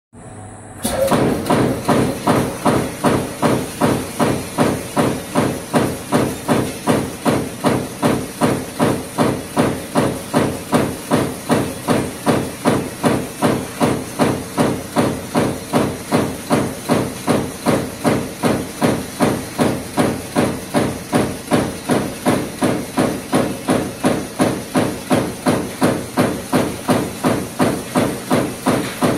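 Razor wire machine's high-speed punch press stamping steel strip into razor blade tape, in a steady rhythm of about two strokes a second that begins about a second in, over a steady high hiss.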